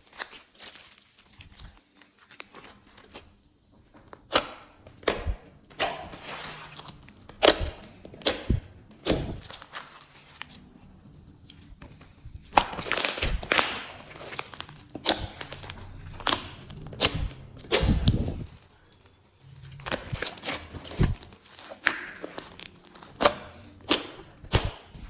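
Hands kneading and stretching glossy slime: irregular sharp, sticky pops and crackles, with a few longer crinkling stretches.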